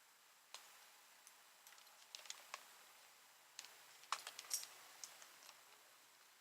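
Faint, scattered sharp clicks and ticks over near silence, a few of them close together about two and about four seconds in.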